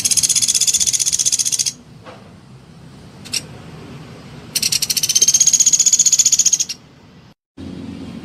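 Pelatuk beras woodpecker calling: two rapid, high-pitched chattering trills of about two seconds each, with a single short note between them.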